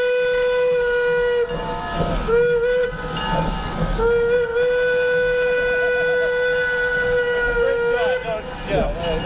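Steam locomotive whistle blowing one steady note. A long blast ends about a second and a half in, a short toot comes a second later, then another long blast of about four seconds drops slightly in pitch as it closes.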